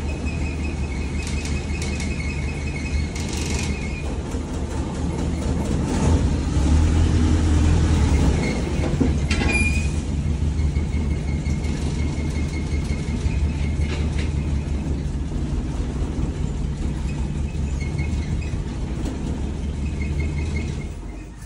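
Land Rover engine running under a low drone as it manoeuvres in reverse, with an on-and-off high-pitched whine from the drivetrain, the kind of noise behind the owner's fear he has damaged the LT76 gearbox. The sound drops away sharply at the very end.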